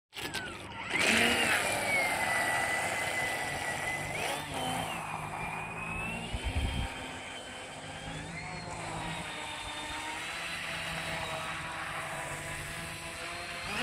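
Joysway Bullet RC speedboat's water-cooled 2815 1900KV brushless outrunner motor on a 4S LiPo, whining as the boat runs across the water. The whine jumps sharply in pitch about a second in, dips and climbs again as the throttle changes, with a few low thumps partway through.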